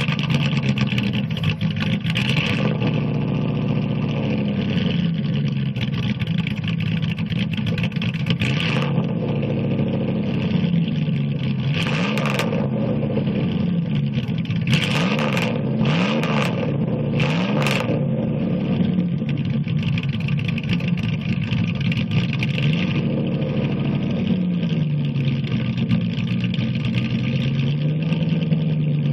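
1996 Dodge Ram 1500 running on straight-piped exhaust, idling and being revved up and back down repeatedly. A quick run of short throttle blips comes a little past the middle.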